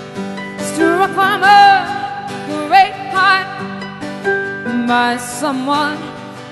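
A woman singing with strong vibrato in sustained phrases, accompanied by acoustic guitar and harp; the voice comes in about a second in.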